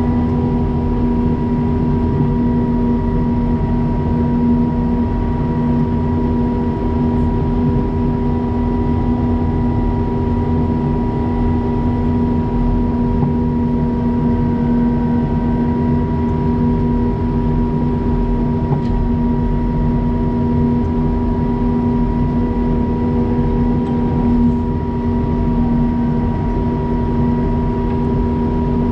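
Wheel loader's engine running steadily during snow plowing, a continuous low rumble with a steady whine on top.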